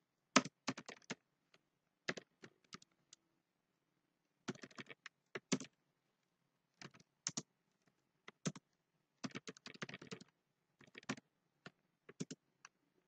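Computer keyboard being typed on, keystrokes clicking in short irregular bursts with brief pauses between them.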